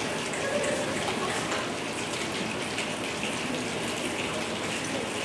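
Rain simulation made by a large chorus with their hands: dozens of people rubbing and tapping their hands at once, a steady dense hiss with fine pattering, like rain.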